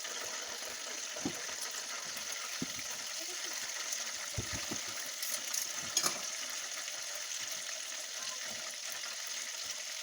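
Fried rice sizzling in a hot pan as it is stirred, with a few knocks and scrapes of the utensil against the pan; the loudest knock comes about six seconds in.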